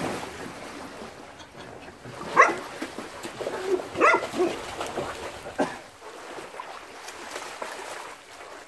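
A dog barking in a handful of short, separate barks between about two and six seconds in, over faint water splashing.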